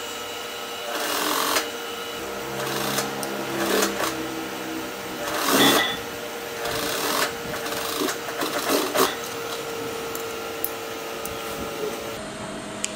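Juki industrial sewing machine top-stitching a folded denim hem, running in several short bursts as the fabric is turned, over a steady motor hum that stops near the end.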